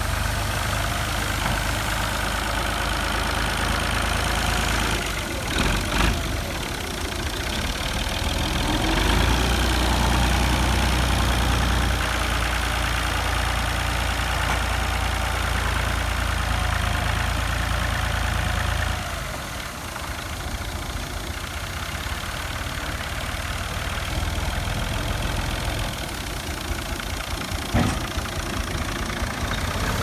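Small tractor's diesel engine running. It grows heavier and louder for about ten seconds in the middle, then eases back. One sharp knock comes near the end.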